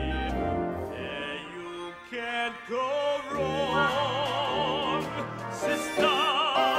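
A man sings operatically with wide vibrato over an orchestra, holding one long note in the middle and starting another near the end.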